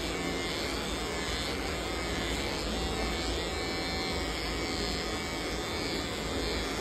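Corded electric pet hair clipper running steadily as it shaves through a Labrador retriever's coat.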